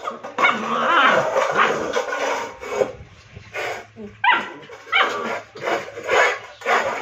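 Rottweiler puppy growling and barking, angry that its stainless steel food plate has flipped upside down and won't come straight. A continuous stretch of vocalising in the first few seconds gives way to short separate barks about every half second to second.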